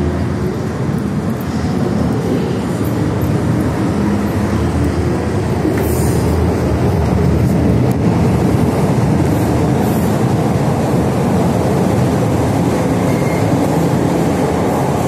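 MTR M-Train subway train running close past at speed into the tunnel: a steady, loud rumble of the cars on the track, growing a little louder about halfway through.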